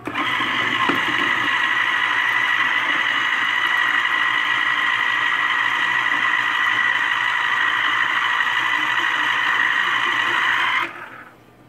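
Philco Citrus Turbo electric citrus juicer's motor spinning the reamer while an orange half is pressed down hard on it. It makes a steady whine that holds even under the pressure without stalling, then cuts off suddenly near the end.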